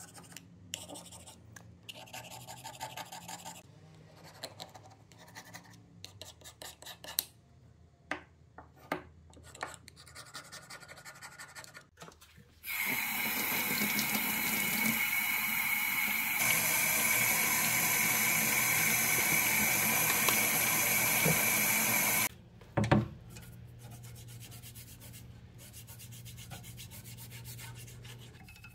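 Razor scraper scraping grime and rust off a metal hand plane part in short irregular strokes. About thirteen seconds in, a tap runs water into a utility sink for about ten seconds and shuts off suddenly. This is followed by a knock and quieter scrubbing of the part in the sink.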